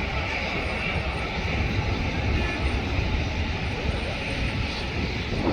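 Jet airliner engines passing nearby, a steady rumble with a hissing upper band.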